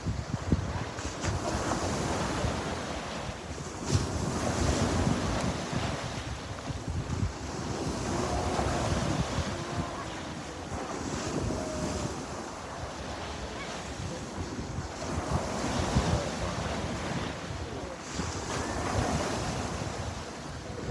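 Sea surf: waves breaking and washing in, swelling and ebbing every few seconds, with wind buffeting the microphone.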